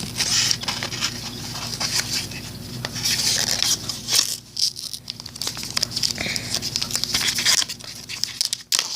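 A homemade trading-card pack being torn open by hand: irregular crinkling and tearing with handling rustle.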